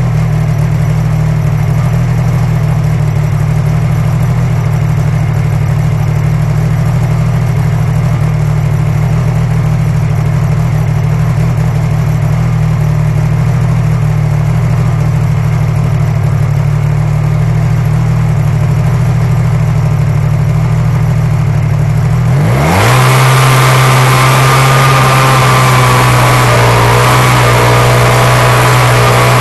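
Snowmobile engine idling steadily and close by. About three quarters of the way through, the engine note steps up and a loud hiss joins it as the sled gets moving.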